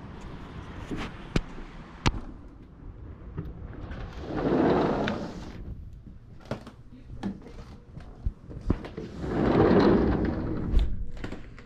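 Sliding glass patio door rolling along its track as it is opened, and again about five seconds later as it is slid shut, ending in a sharp knock. Scattered light knocks in between.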